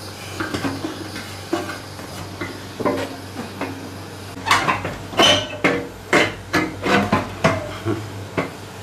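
Metal tools and parts clinking and knocking as a mechanic works by hand inside a scooter's bodywork. The sharp clinks, some briefly ringing, come thicker and louder from about halfway through.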